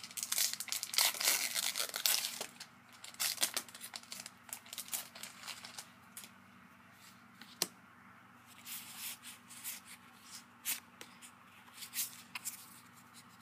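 A foil Pokémon Roaring Skies booster pack being torn open, with dense tearing and crinkling of the wrapper for about the first three seconds. Scattered crinkles of the wrapper and a few sharp clicks follow.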